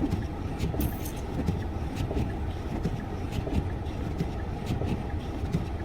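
Front-wheel-drive car's engine running as its front wheels spin in deep snow, a steady low rumble: the car is stuck and cannot get traction.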